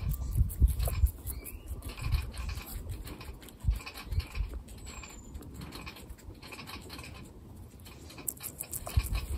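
Guinea pig chewing a slice of cucumber close to the microphone: quick, regular wet crunches, a few every second. A few low thumps come in the first second and again near the end.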